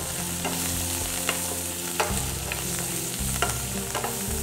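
Shallots, green chillies, garlic and coriander sizzling in hot groundnut oil in a stainless-steel pan while a wooden spatula stirs them, with a few sharp, irregular taps of the spatula against the pan.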